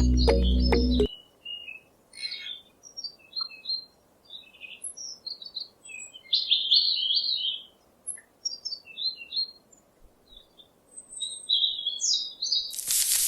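Small birds chirping in quick, scattered short calls. Music cuts off about a second in, and a loud burst of hiss comes in near the end.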